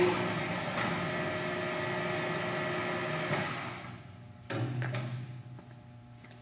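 Kingston HD2290 gap-bed lathe's 10-horsepower main drive running the spindle with a steady hum for about three and a half seconds, then dying away. A second, shorter start about four and a half seconds in, which fades again, as when the spindle is jogged.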